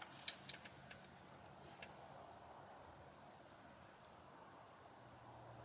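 Near silence of still outdoor air, with a few soft clicks in the first half-second and faint, short, high chirps now and then.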